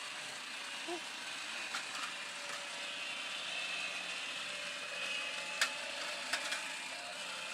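Toy chainsaw's small motor whirring with a ratcheting, gear-like rattle and a few sharp clicks.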